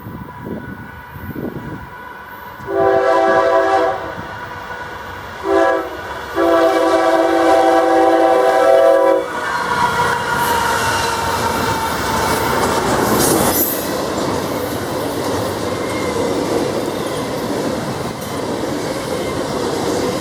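Norfolk Southern freight train's lead locomotive sounding an unusual multi-note air horn: a long blast, a short one, then a longer one. The train then runs past with steady wheel-on-rail noise and clickety-clack.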